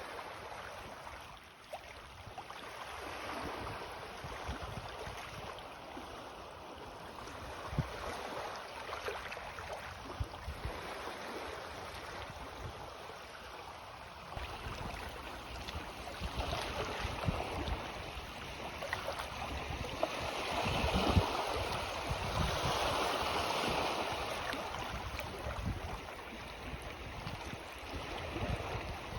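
Small sea waves lapping and washing in on the shore as the tide rises, in soft swells that ebb and return. The wash is loudest about two-thirds of the way through.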